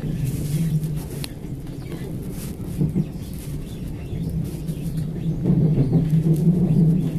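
Class 357 Electrostar electric multiple unit running, heard from inside the carriage: a steady low hum over rumble, with a few sharp clicks, growing louder from about five seconds in.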